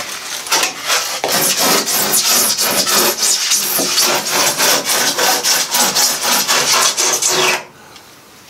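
A hand blade sawing through pink extruded polystyrene (Styrodur) foam board in quick back-and-forth rasping strokes, trimming it along an edge. The sawing stops suddenly about seven and a half seconds in as the cut is finished.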